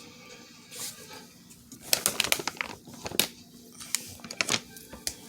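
Small items and packaging being handled: crinkling and rustling with sharp clicks, in short flurries about two seconds in, just after three seconds and around four and a half seconds.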